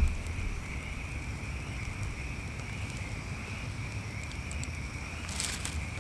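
Steady high-pitched drone over a low rumble outdoors. About five seconds in comes a quick run of crackles and snaps from kindling on a small campfire being built.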